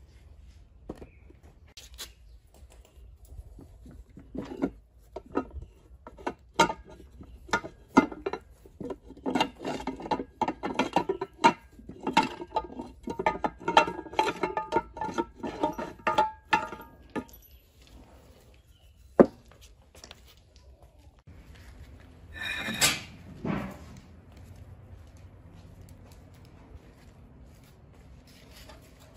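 Metal parts clinking and knocking together as they are handled, in quick irregular strokes with some ringing. Then a single sharp click, and a short noisy burst about two-thirds through.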